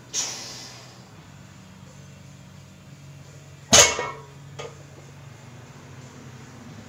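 Loaded barbell with iron plates set down on a rubber floor mat between deadlift reps: a loud metal clank with a short ringing tail about four seconds in, then a small click as the plates settle. A softer, fading clatter comes right at the start.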